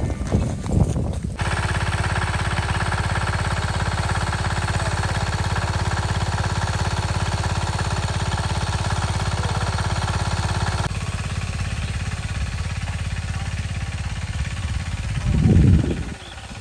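Small engine-driven water pump running steadily with a fast, even chugging; the sound grows a little thinner about two-thirds of the way through. A brief, louder low sound rises over it near the end.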